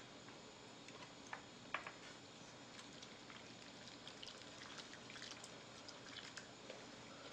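Faint simmering of noodle broth with clams in a pot on a tabletop burner: scattered small pops and ticks, a couple of them slightly louder in the first two seconds.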